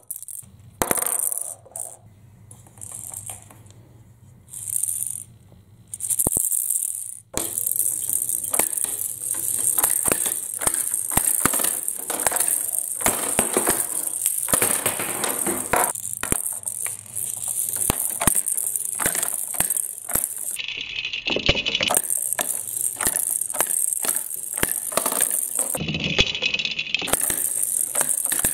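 Plastic balls rolling and rattling around the plastic spiral trays of a ball-drop tower toy, clicking against the rims and dropping from tray to tray. The sound comes in short, broken spells for the first few seconds, then runs on as a continuous clatter.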